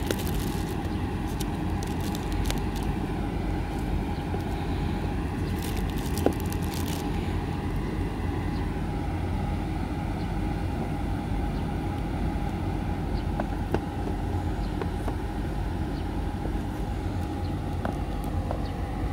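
Clear plastic shrink wrap crinkling as it is peeled off a cardboard phone box, in brief rustles at the start and again around six seconds in, over a steady low outdoor rumble.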